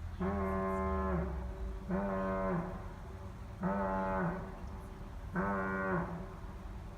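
Gamewell diaphone air horn giving four separate blasts about 1.7 s apart, the first about a second long and the rest shorter. Each is a low, buzzy tone that sags in pitch as it cuts off. The repeated blasts are a coded signal of the kind once counted to tell firefighters where a call was.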